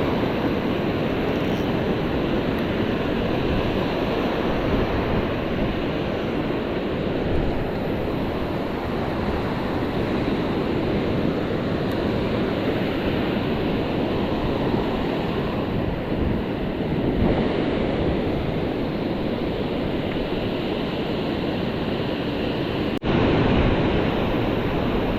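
Ocean surf washing onto the beach, with wind buffeting the microphone: a steady rushing noise.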